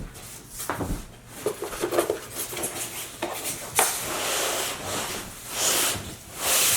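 Cardboard packaging being handled during unboxing: a few knocks, then long scraping and rubbing noises toward the end.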